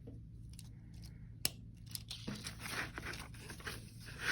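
Rustling and small clicks of plastic LEGO pieces being handled during a build, with one sharp click about a second and a half in and scratchy rustling after that.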